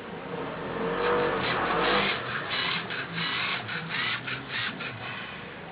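LEGO Mindstorms NXT servo motors and gears whirring as the robotic arm moves, in a run of short, stop-start bursts.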